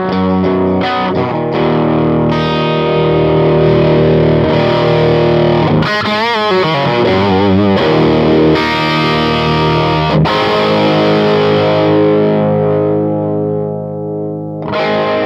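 Overdriven electric guitar played straight into a Tube Town Lummerland Express valve amp, no pedals, with the drive set from the guitar's volume knob. Ringing chords sustain, bent notes waver in pitch about six seconds in, and a chord dies away before a new one is struck near the end.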